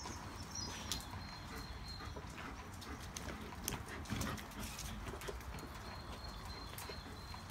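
German shepherds playing at close range: irregular clicks and scuffles of claws and paws on wet concrete, with the rustle of a chewed-up toy.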